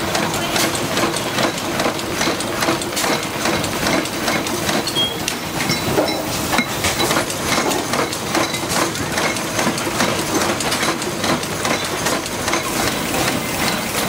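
Factory-floor noise of a motor stator production line: dense, irregular clicking and clattering from machinery and handled parts, over a steady machine hum.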